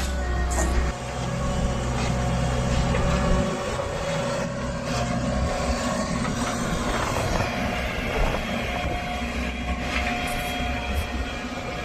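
Diesel engine of a working JCB backhoe loader running, with a steady higher whine over it. A heavy low drone eases off about three and a half seconds in.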